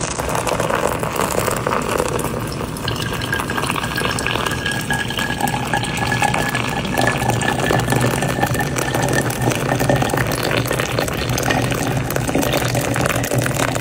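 Water poured steadily from a kettle onto ground coffee in a paper filter, brewing filter coffee.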